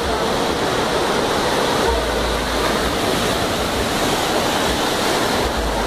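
Heavy rain and floodwater rushing across a flooded street, a steady wash of water noise, with cars driving through the water and throwing up spray.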